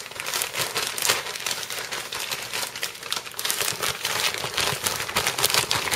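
Clear plastic bag crinkling and crackling continuously as it is handled, shaken and squeezed with chicken pieces inside.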